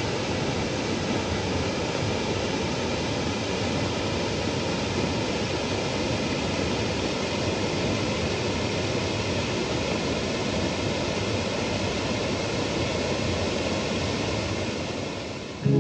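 Steady rushing of water, a mountain stream or small waterfall, even and unbroken, fading out near the end.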